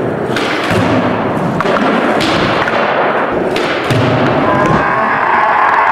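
Skateboard wheels rolling on a concrete floor, broken by several sharp clacks and thuds as the board is popped and lands, one of them on a low wooden box.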